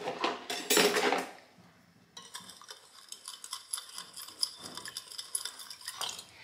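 A metal spoon stirring sugar into water in a bowl to dissolve it, scraping and clinking rapidly against the bowl from about two seconds in. A short noisy clatter comes in the first second.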